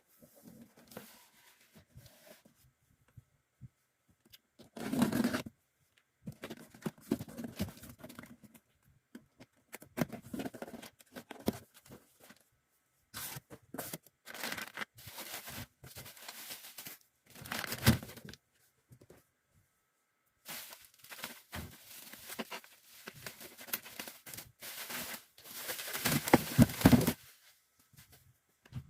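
Packing material being handled, with tearing and crinkling in irregular bursts, the longest and loudest near the end.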